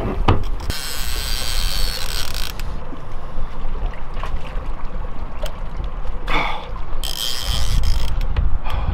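Big-game fishing reel paying out line against its drag, a buzzing ratchet, as a hooked bull shark pulls. It comes in two runs of about two seconds, one about a second in and one near the end, over a low rumble of wind on the microphone.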